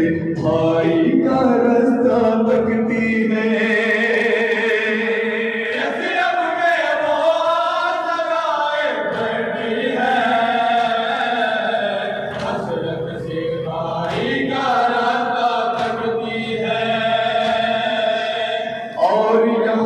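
A group of men chanting a noha, a Shia lament, together through a microphone, in long held melodic lines with short breaks between phrases.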